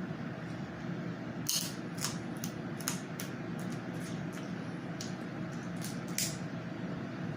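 Eating a seafood boil up close: about ten irregular, sharp clicks and smacks, over a steady low hum.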